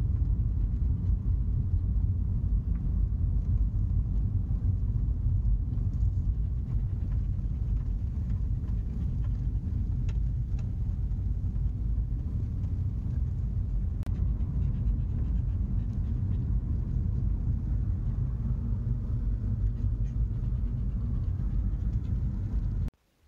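VW T4 Transporter van driving along a country lane, heard from inside the cab: a steady low rumble of engine and road noise, which cuts off suddenly near the end.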